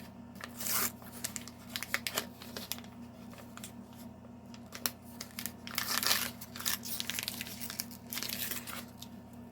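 Plastic packaging crinkling and rustling in irregular bursts as small toy figures are unpacked, with light clicks and taps of the hard plastic figures being handled.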